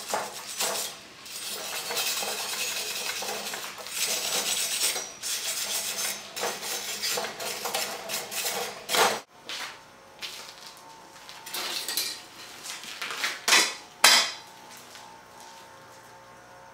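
A hand-held steel wire brush scrubbing back and forth over fresh welds on a mild-steel square-tube frame: a run of rapid, scratchy strokes, cleaning up the welds. About nine seconds in it breaks off suddenly; a few louder scrapes and sharp metal knocks follow, and the last few seconds are much quieter.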